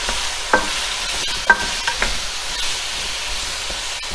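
Potato chunks sizzling in hot oil as a wooden spatula stir-fries them in a wok, with a few sharp knocks of the spatula against the pan, the loudest about half a second and a second and a half in.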